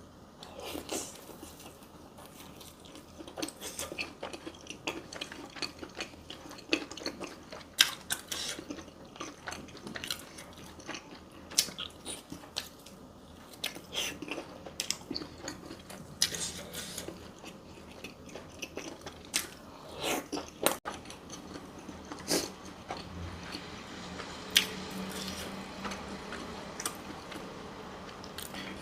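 Close-up eating sounds: irregular biting, chewing and crunching, with many short wet mouth clicks.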